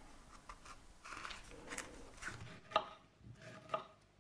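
Kitchen knife dicing a nectarine on a wooden cutting board: irregular knocks of the blade against the board, the sharpest two in the second half.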